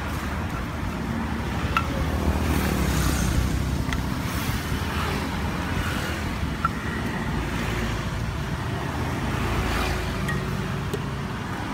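Steady road-traffic rumble from passing vehicles, with a few sharp knocks of a stone pestle against a stone mortar as rujak dressing is ground.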